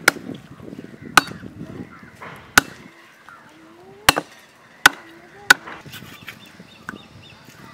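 A long knife chopping a raw leg of mutton against a wooden block: six sharp chops at uneven intervals, the blade cutting through the meat into the wood.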